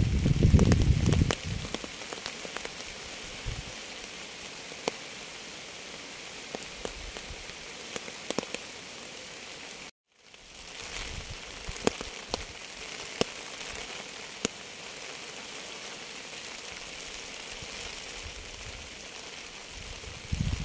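Steady rain with scattered individual drops ticking sharply on a surface. A low rumble sits under it in the first second or so. About halfway through the sound cuts out briefly and fades back in.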